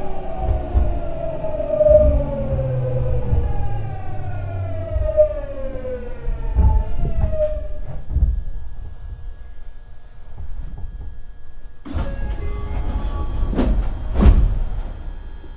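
Hitachi GTO-VVVF inverter and traction motors of a Tokyu 9000 series train under regenerative braking: a whine of several tones gliding downward together as the train slows, dying away about eight seconds in. Near the end, as the train comes to a stop, there is a sudden burst of noise and then a loud clunk.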